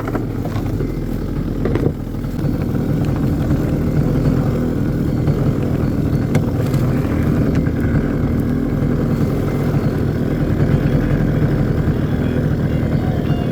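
A small outboard motor running steadily at a constant throttle.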